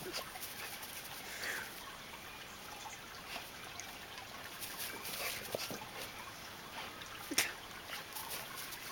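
Two dogs playing: faint scattered scuffling sounds, with one sharp click about seven seconds in.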